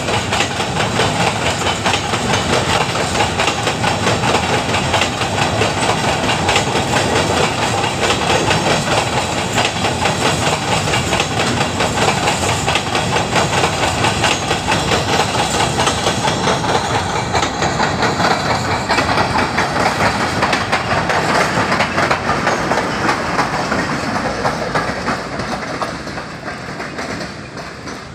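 A long freight train of empty covered hopper wagons rolling past: a steady clatter of wheels over the rail joints with rattling wagon bodies. It fades away over the last few seconds as the end of the train passes.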